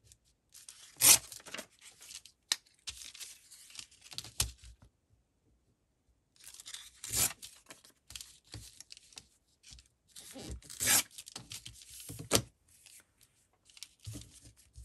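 Paper being torn by hand in a series of short rips with rustling in between; the loudest rips come about a second in, around seven seconds and around eleven seconds, with a brief total silence near the middle.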